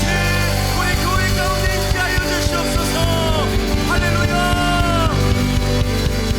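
Live worship band playing the closing bars of a song: a drum kit beating steadily under sustained chords, with a few long held melody notes that slide into pitch.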